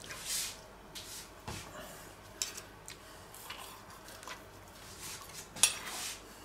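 Carving knife and carving fork working through a roast duck on a wooden board: quiet scattered scrapes and light clicks of steel, with a louder scrape near the end.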